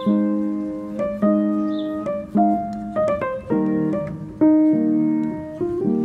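Background piano music: calm chords and single notes struck about once a second, each ringing and fading.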